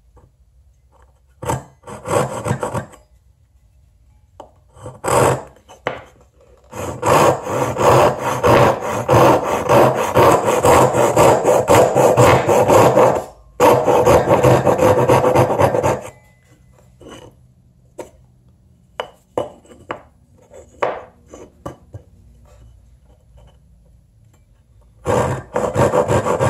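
Gyokucho Razor ryoba Japanese pull saw cutting through a wooden board by hand. A couple of short bursts of strokes come first, then a long steady run of sawing strokes lasting about nine seconds with one brief pause, and another short burst near the end.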